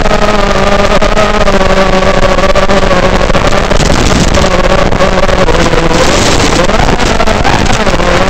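Realacc X210 racing quadcopter's brushless motors and propellers whining in flight, a steady buzzing drone of several pitched tones over a rush of air. The pitch swings up and down near the end as the throttle changes.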